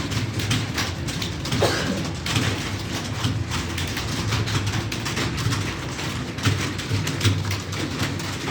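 Computer keyboard being typed on quickly, with many irregular key clicks over a steady low hum.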